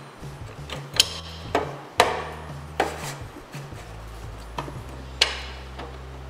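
Metal parts knocking and clinking as a belt-drive hub is worked onto a snowmobile's bottom drive shaft and lined up with the gear: about six sharp, irregular knocks.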